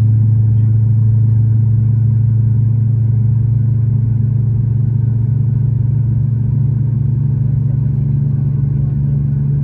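Steady low drone of a Boeing 737 MAX 8's CFM LEAP-1B engines heard inside the passenger cabin, its pitch shifting slightly higher about halfway through.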